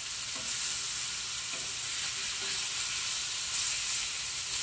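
Two thick chuck steaks sizzling in butter on a hot griddle: a steady frying hiss.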